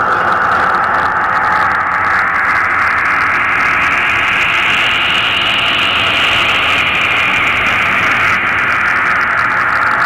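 Steady, loud hissing noise from a dance piece's soundtrack. It slowly sweeps up in pitch to a peak about halfway through, then back down.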